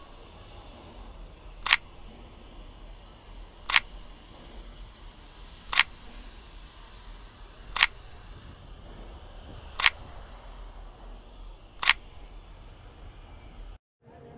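Camera shutter clicks, one sharp click every two seconds, six in all, over a faint steady hiss.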